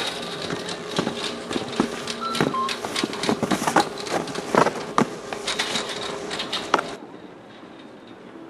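Chairlift machinery running: a steady low hum with irregular clattering and knocking as the cable and chairs pass over the sheaves, dropping to a quieter hum about seven seconds in.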